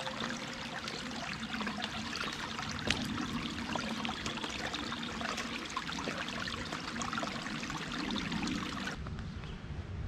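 Shallow stream trickling and babbling over rocks, a steady wash of water sound; it drops away suddenly near the end.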